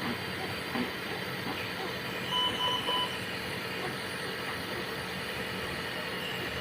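Three short electronic beeps of a patient monitor in quick succession about two seconds in, over a steady hum of room equipment.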